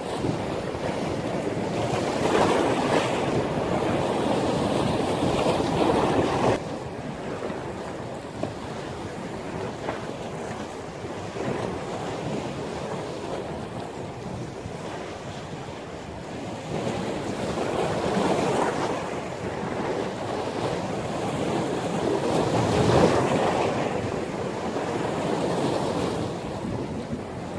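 Sea surf breaking and washing in strong wind, with wind buffeting the microphone. The rushing noise swells and fades in surges, drops suddenly about six and a half seconds in, and builds twice more later on.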